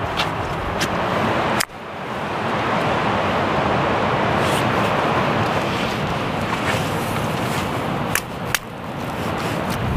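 Steady rush of surf and wind on the microphone, with two sharp knocks near the end as a stone strikes a limpet on the rock to dislodge it.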